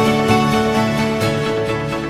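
Instrumental background music with sustained notes and chords.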